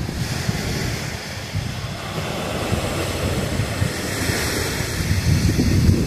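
Sea surf washing onto a sandy beach, with wind buffeting the microphone in a low rumble; the surf grows louder near the end.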